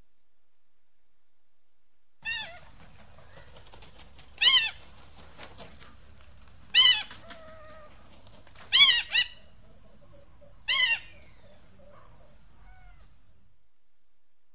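An eagle calling: five short, high calls about two seconds apart, the fourth one doubled, over a faint low rumble in the recording.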